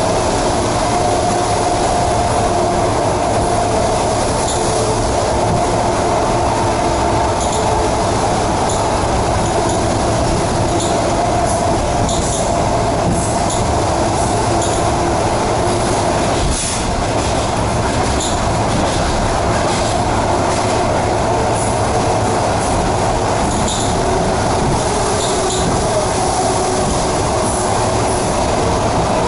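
ED4MK electric multiple unit running at speed, heard from inside the carriage: a steady rumble of wheels on rail with wavering whining tones and light ticks, and a brief dip in the noise about halfway through.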